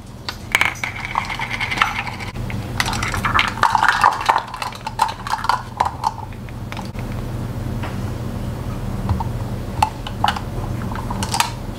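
Measuring spoon and dishes clinking and scraping as a teaspoon of chili powder is scooped out and tipped into a mixing bowl: many short, sharp clicks and clinks, some ringing briefly, over a low steady hum.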